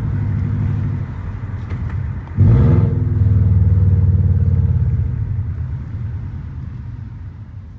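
Straight-piped Subaru Legacy 2.5i flat-four boxer engine running. About two and a half seconds in it is revved up with a rising pitch, holds loud, then eases off and fades toward the end.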